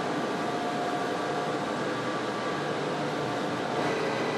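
Four-strand wire rod rolling mill running: a steady machine din from the roll stands, with faint steady whines in it.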